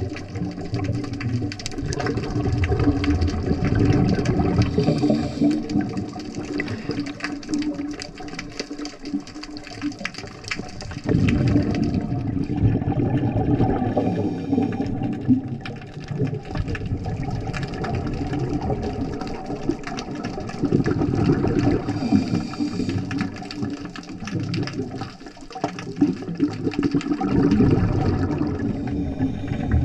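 Muffled underwater water noise heard through a diving camera's housing: a low rushing and bubbling that swells and fades every few seconds.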